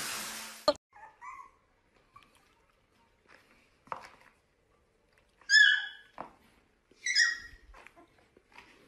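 A steady hiss cuts off abruptly under a second in. Then a puppy gives a few faint short yips and two loud, high-pitched yelps, about five and a half and seven seconds in.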